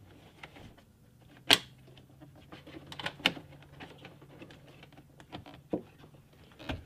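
Hands working a plastic cable clip onto the metal latch bracket inside a car door: scattered sharp plastic-and-metal clicks and taps, the loudest about one and a half seconds in, with a few more near the middle and end.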